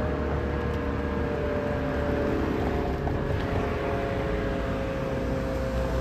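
Sentry 20V2T dual-tone outdoor warning siren sounding, a chord of several steady tones held without a break.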